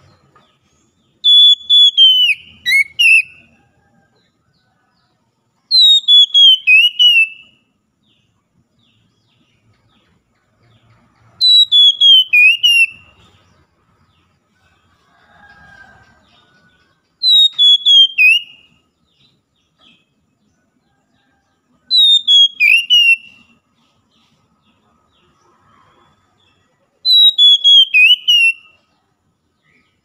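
Oriental magpie-robin singing: a short phrase of clear whistled notes falling in pitch, repeated six times about every five seconds.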